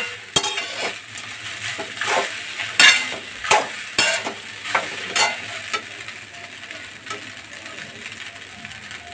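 Metal slotted spatula scraping and tossing cooked rice around a kadhai in quick, irregular strokes as the rice is mixed into the fried tempering, over a light steady sizzle. The strokes die away about six seconds in, leaving the soft sizzle.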